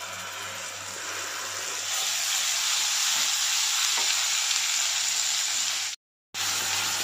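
Ground gravy puree sizzling in hot oil and spices in a kadai as it is poured in and stirred with a silicone spatula: a steady hiss that grows louder about two seconds in and cuts out for a moment near the end.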